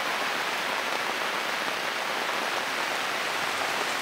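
Steady rain falling, an even hiss with no single drops or other sounds standing out.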